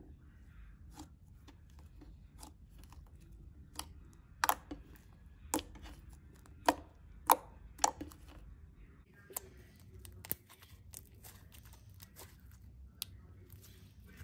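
Glossy slime being poked and kneaded by fingers, making irregular sharp clicks and pops. They are loudest and most frequent about four to eight seconds in.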